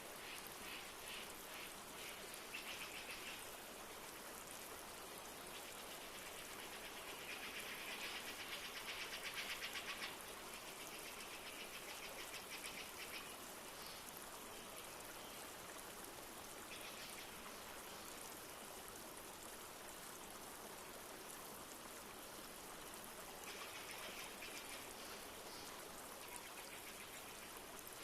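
Steady rush of a flowing forest stream with light rain falling. Over it, a high, rapid trilling call comes in repeated bursts of one to three seconds, the longest and loudest about eight to ten seconds in.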